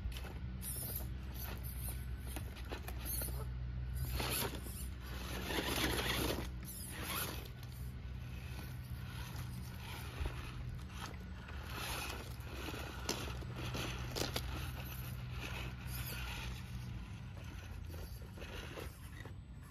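Axial Capra RC rock crawler's electric motor and drivetrain whirring as it crawls over rocks, with its tyres scraping and rocks crunching under them, loudest about four to seven seconds in.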